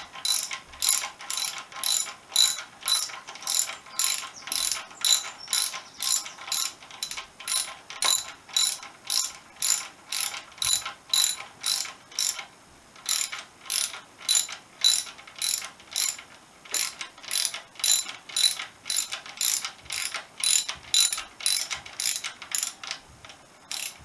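Ratchet wrench clicking steadily, about two sharp ringing clicks a second, as a fork tube is drawn up through the yoke to its full height by its top bolt. The clicks stop just before the end.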